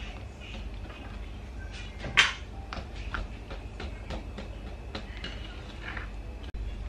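Wire balloon whisk stirring thick cake batter in a ceramic bowl: soft scraping and light clinks of the wires against the bowl, with one sharper knock about two seconds in.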